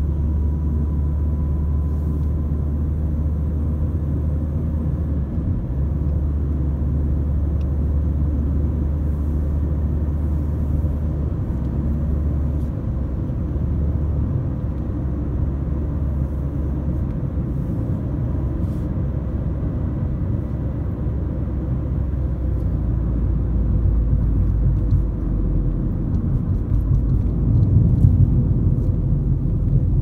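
Steady low road-and-engine rumble of a car driving at speed, heard from inside the cabin; it grows a little louder in the last few seconds.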